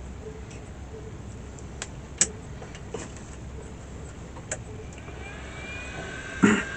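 A few small sharp clicks of parts being handled. About five seconds in, a heat gun starts up for shrinking heat-shrink tubing over a soldered wire splice: its fan comes up to a steady whine with a rising pitch. A short loud knock comes near the end.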